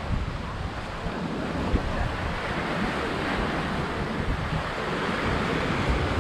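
Surf washing onto a sandy beach in a steady hiss, with wind buffeting the microphone in an irregular low rumble.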